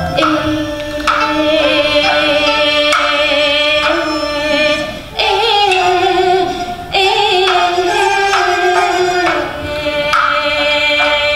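Kunqu opera aria: a woman's voice sings long, drawn-out notes with a fine vibrato, doubled by a bamboo qudi flute. A few sharp percussion clicks mark the beat.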